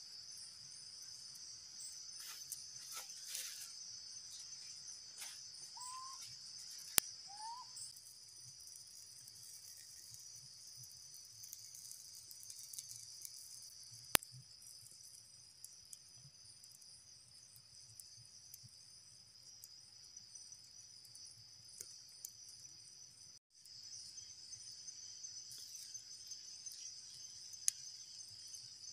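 Steady high-pitched chorus of insects, with a few sharp clicks and two short rising chirps about six and seven seconds in.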